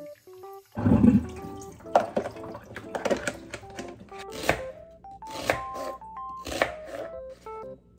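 Background music with a melody and a beat, over tap water running into a sink in the first few seconds. Near the end, a knife chops onion on a plastic cutting board.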